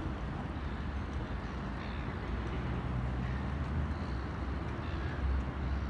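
Steady low engine rumble over a faint outdoor hiss.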